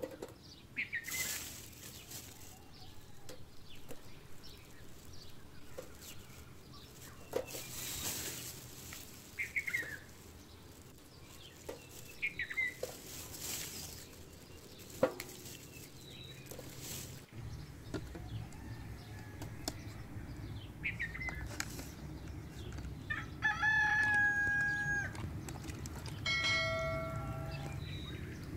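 A rooster crowing twice near the end, each crow a stepped call lasting about two seconds. Earlier, small birds chirp now and then.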